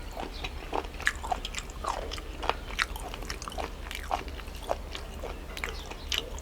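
A person chewing and biting food close to the microphone, with many irregular short wet clicks and small crunches.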